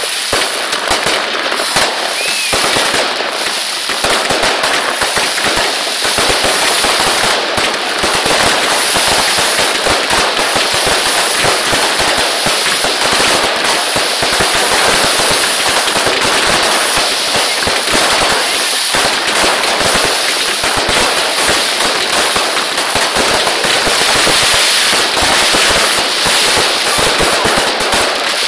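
Fireworks finale barrage: aerial bursts of crackling stars going off without a break, a dense run of many sharp pops and bangs a second. It dips briefly about four seconds in, then builds again and stays loud.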